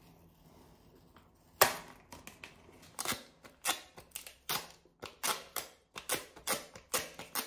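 Sharp plastic clicks and taps from small plastic toiletry bottles and caps being handled. A louder snap comes about a second and a half in, then clicks follow at about two a second.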